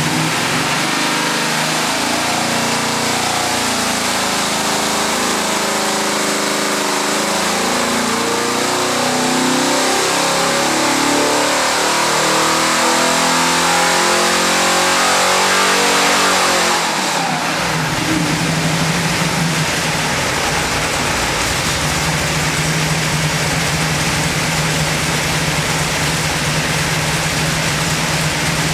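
521-cubic-inch big-block Chevrolet marine V8 on an engine dyno making a pull: the engine speed climbs steadily under load for about seventeen seconds, then drops suddenly back to a steady idle.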